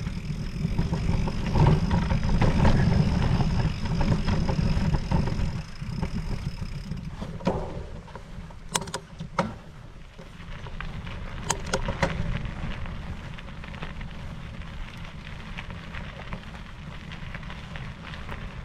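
Riding noise from an electric mountain bike on a trail: a dense low rumble of wind on the microphone and tyres over rough ground, heaviest in the first few seconds. A faint thin high whine stops about seven seconds in, and a few sharp clicks and knocks follow in the middle.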